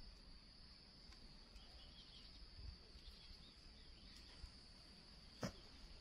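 Near silence with a faint, steady high-pitched insect drone. A single sharp click comes about five and a half seconds in.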